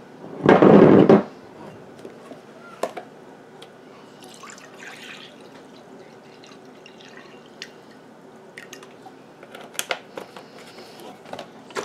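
A carton of chicken broth being opened and handled: a loud, muffled bump about half a second in, then small clicks and light rustles as the plastic screw cap is twisted off and the carton is handled.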